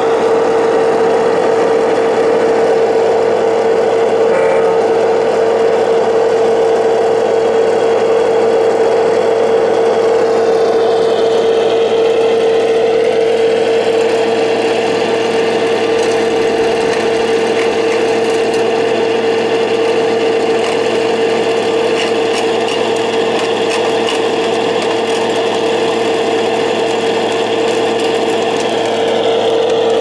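Small electric motors of radio-controlled construction models running with a steady whine, the pitch of some higher tones sliding as they change speed.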